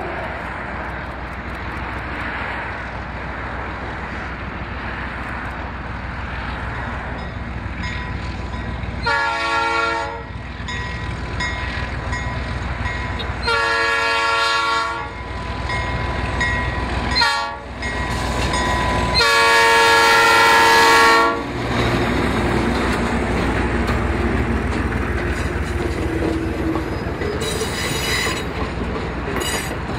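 Locomotive air horn blowing four blasts, long, long, short, long, the standard signal for a grade crossing, over the steady rumble of the train rolling past.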